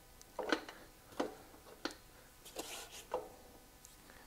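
Light metal clicks and clinks, about five of them spread over a few seconds, as an axle spacer is fitted onto the rear axle of a Honda CB450T motorcycle.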